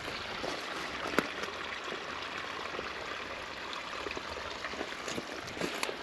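Small stream flowing and trickling steadily, with a sharp click about a second in.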